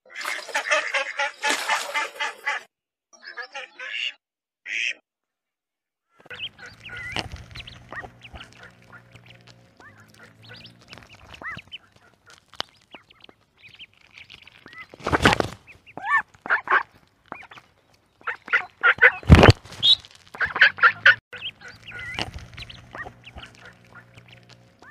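A flock of mallards quacking together, thinning to a few single calls a few seconds in. Then ducklings peep over a steady low hum, with two loud thumps about 15 and 19 seconds in.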